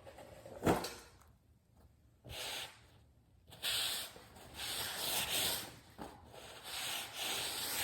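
A single knock, then a run of rubbing, swishing strokes, each lasting about a second, starting about two seconds in.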